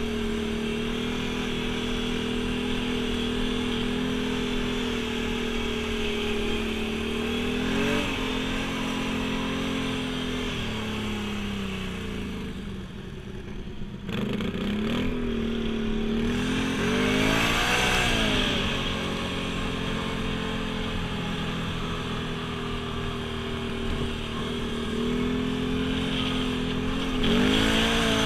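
ATV engine under way at a steady pitch, then easing off to a lower, quieter note about twelve seconds in before revving back up. It rises in pitch with throttle several more times, the last near the end.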